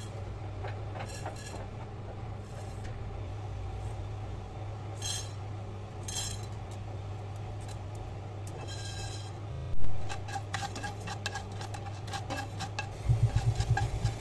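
Whole spices (coriander seeds, cumin seeds, black peppercorns and green cardamom) spooned into a dry non-stick frying pan, the seeds pattering onto the pan in a few short bursts. About ten seconds in there is a knock, then quick clicking and scraping as a plastic spatula stirs the seeds around the pan, over a steady low hum.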